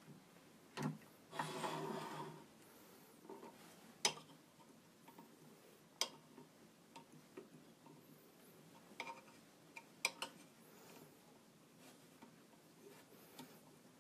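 Scattered light clicks and taps of a small steel blade touching a rosewood bead spindle inlaid with silver wire, worked by hand. A brief scraping rub comes a second or two in.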